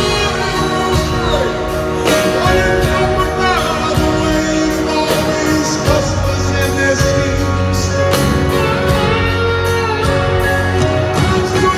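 Live band music recorded from the audience: a male singer with acoustic guitar, backed by drums and band through the arena PA.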